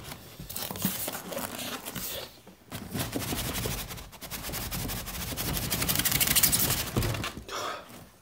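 Styrofoam packing pieces and a cardboard box scraping and rustling as a PC case is worked out of its box, with a dense crackling scrape that grows loudest about six seconds in.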